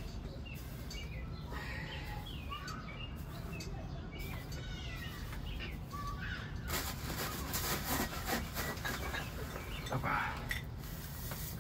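Small birds chirping in the background for the first half. From about seven seconds in, close rustling and scraping as bonsai soil is pushed down and worked into the pot.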